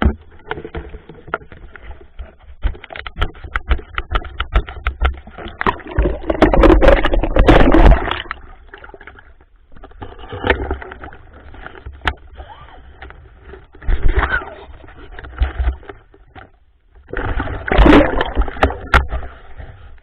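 Muffled water sounds: sloshing and bubbling with many small clicks, swelling louder twice, heard through an underwater camera housing.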